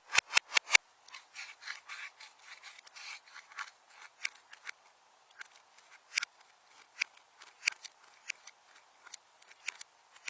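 Slime being worked by hand: a quick run of sharp clicky pops at the start, then a couple of seconds of squishing and rubbing, then scattered single pops and clicks.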